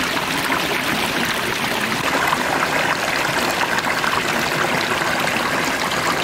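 Shallow mountain stream pouring over rocks in a small cascade: a steady, fairly loud rush of running water.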